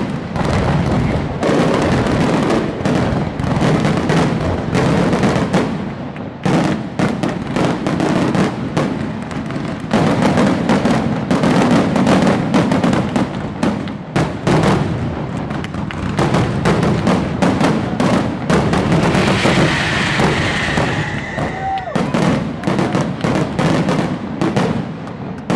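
Aerial fireworks display, loud, with shells bursting and crackling in rapid, near-continuous succession. A high whistling tone rises over the bangs about twenty seconds in.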